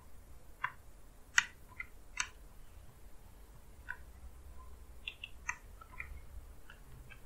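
Computer keyboard keystrokes: about a dozen short, irregular clicks as a short command is typed.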